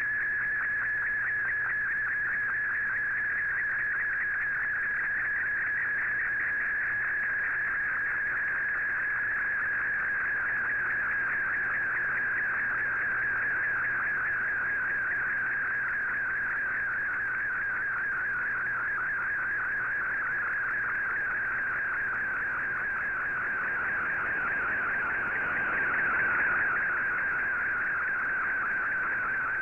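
Shortwave Radiogram picture transmission received in AM on an Icom IC-R8600: a continuous high warbling data tone whose pitch flutters rapidly as the image is sent line by line, over a faint low hum. The signal swells briefly near the end.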